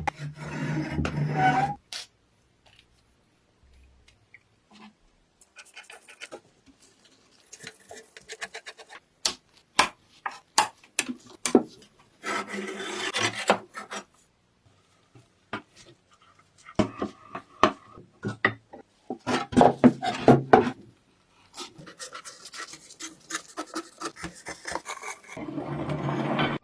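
Rusty metal parts of a bread slicer being scraped and rubbed during rust removal, in irregular bursts of scraping with scattered clicks and knocks between quiet gaps.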